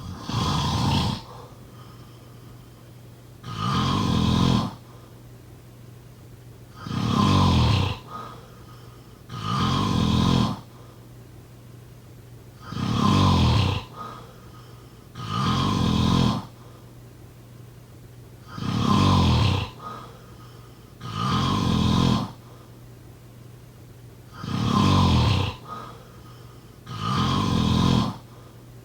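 A sleeping person snoring loudly and regularly, about one snore every three seconds, each lasting about a second, with quiet breathing between them.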